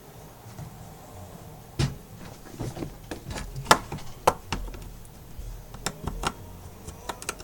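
Scattered clicks and light knocks of small tools and phone parts being handled on a work surface, about a dozen of them starting about two seconds in.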